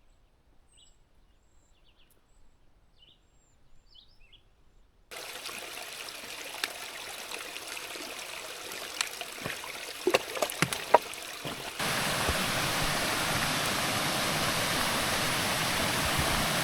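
Faint bird chirps over near silence. Then a steady rush of water with a few knocks, and about twelve seconds in, a louder, even rush of a mountain creek spilling down a small cascade of waterfalls.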